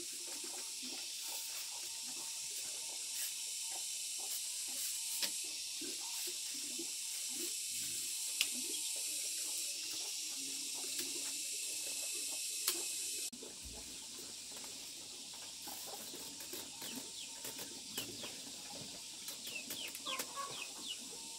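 Light clicks and taps of thin bamboo strips being laid out and woven into a frame, over a steady high hiss that drops about two-thirds of the way through. Chickens cluck near the end.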